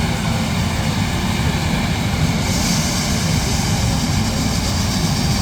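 Corn-harvesting machinery (combines and grain-cart tractors) running steadily with a low rumble. A high hiss grows louder about two and a half seconds in.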